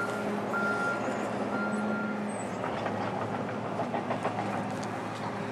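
Reversing alarm on a piece of earthmoving equipment, beeping about once a second three times before it stops about two seconds in, over the machine's engine running steadily.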